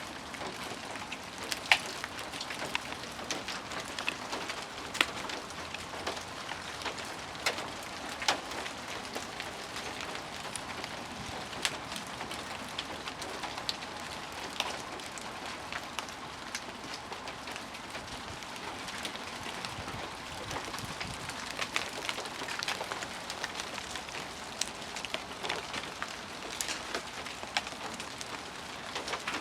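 Pieces of ice breaking off ice-coated trees as the glaze melts, falling in a steady shower of clicks and pattering like hail, with a few louder sharp hits from bigger chunks, the loudest early on.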